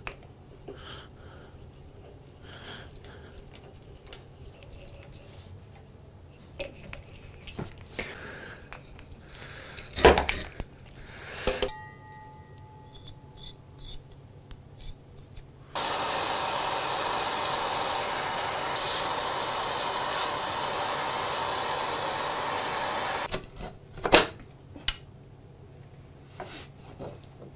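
Bench handwork with faint ticks and rustles of boring with a small hand drill bit and a sharp knock about ten seconds in, then a propane hand torch hissing steadily for about seven seconds before it cuts off suddenly. A few wooden clatters follow as the saw and its guard are handled.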